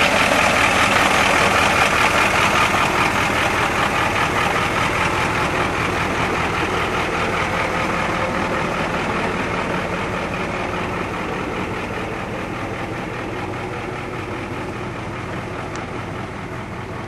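A vehicle's engine running steadily, with a rushing noise over it that slowly dies down.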